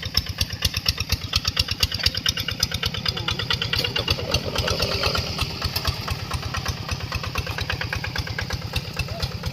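Single-cylinder Kubota diesel engine on a two-wheel hand tractor running steadily with a fast, even chugging beat.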